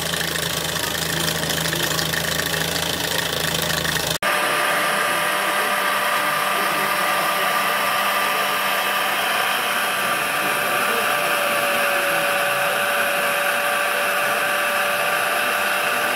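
Mamod toy steam roller's single oscillating-cylinder engine running fast, a steady hum with a quick even beat. About four seconds in the sound cuts to a steady hiss with a thin high whine from a working model beam engine.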